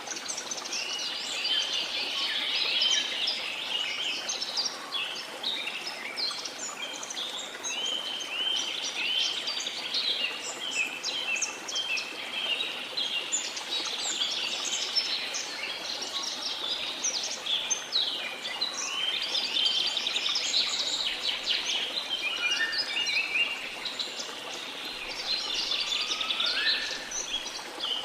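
A dense chorus of rainforest birds chirping and calling without pause, with a few rising whistled calls in the second half. A faint steady rush of water runs underneath.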